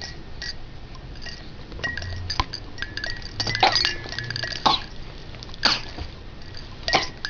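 Cymbals struck together in an uneven, haphazard way: about half a dozen metallic clinks at irregular intervals, starting about two seconds in, each with a brief ring.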